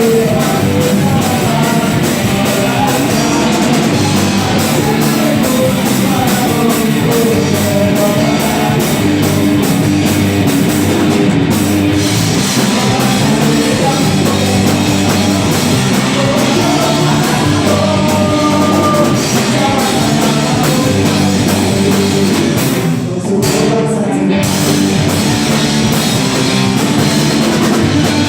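A rock band playing loud, heavy rock with a drum kit, guitars and singing, with a brief drop in the high end about two-thirds of the way through.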